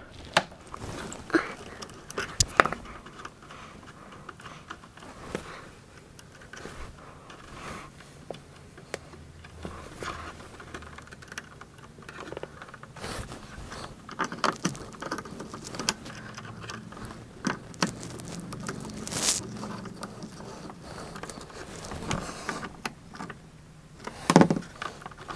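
Scattered small clicks, taps and scrapes of a screwdriver working a circuit breaker's terminal screw and a wire being shifted inside an RV breaker panel.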